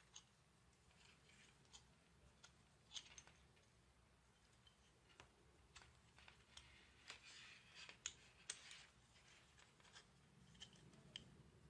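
Faint handling noises: a metal pan-tilt bracket clicking and scraping against an MG996 servo's plastic case as it is fitted by hand, busiest about seven to nine seconds in.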